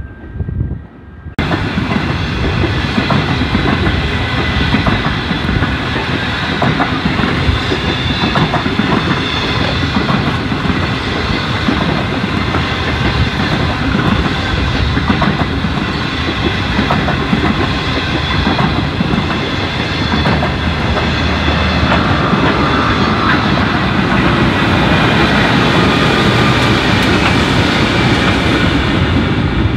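Train carriages rolling along the rails in a steady loud rumble, with wheels clicking over rail joints; the sound starts abruptly about a second in.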